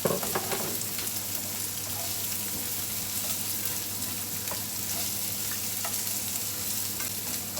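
Onion frying in coconut oil with ginger and garlic in a pan on medium heat: a steady sizzle, with a few light clicks from stirring.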